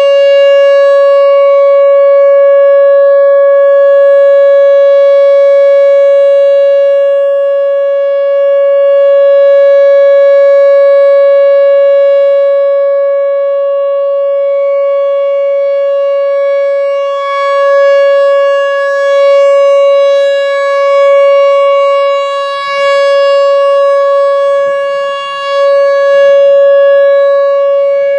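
Whelen Vortex R4 outdoor warning siren sounding a steady alert tone at one unchanging pitch, rising and falling slowly in loudness, during a monthly test. It holds a steady tone rather than a wail.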